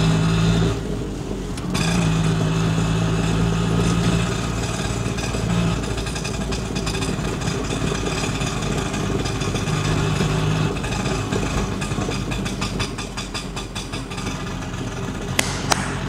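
Auto-rickshaw engine sound running steadily, swelling a few times, with a rapid chugging tick in its later part.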